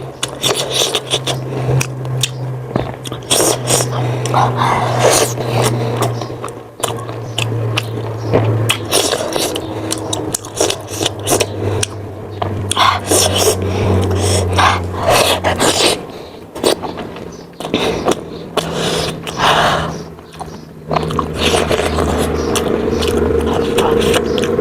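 Close-miked eating of spicy chicken momos: frequent short clicks, scrapes and crackles of biting and chewing, heard over a low steady hum.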